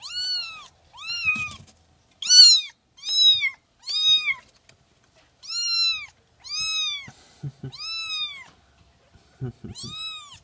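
Very young kitten meows, high-pitched and arching, repeated about once a second with short gaps. A few soft low knocks come near the end.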